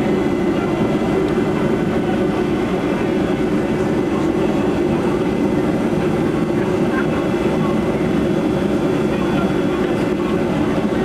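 Steady cabin noise inside a Boeing 727 as it taxis: the engines' low, even drone heard through the fuselage.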